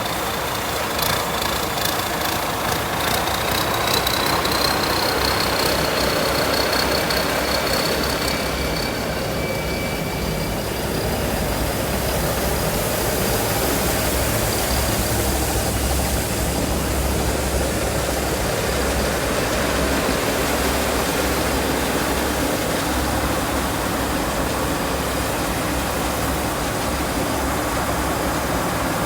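Combine harvester built by Pimai Charoen Kan Chang, its engine and machinery running steadily with a deep drone and a thin high whine that rises slightly over the first dozen seconds.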